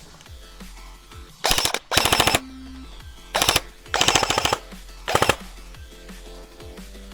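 Airsoft rifle firing five short bursts of full-auto fire, each a rapid string of clicks, about one to one and a half seconds apart. Background music with steady tones runs underneath.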